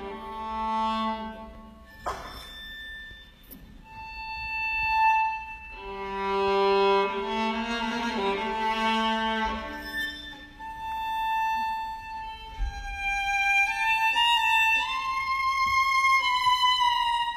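Violin playing a slow melody of long bowed notes that climb higher near the end, with a sharp click about two seconds in.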